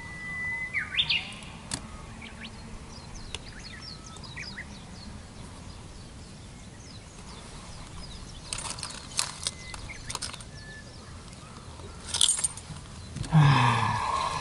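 Small birds chirping in the background, with one whistled call near the start that holds a note and then leaps upward. A few sharp clicks from handling fishing tackle come through the middle, and near the end a man gives a low wordless sound that falls in pitch.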